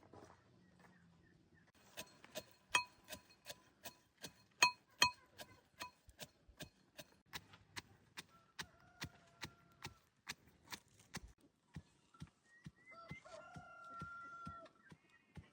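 Regular sharp clicks or knocks, about three a second, some with a brief metallic ring, starting about two seconds in and thinning out later. Two short held tones sound in between.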